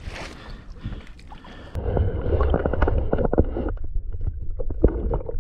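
Water lapping at a kayak. About two seconds in, this gives way suddenly to the muffled rumble of water heard through an underwater camera, with many irregular knocks and clicks.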